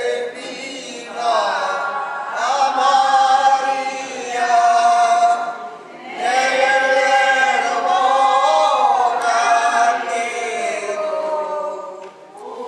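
A man and two women singing a hymn together in long, drawn-out phrases, with a pause for breath about six seconds in and another near the end.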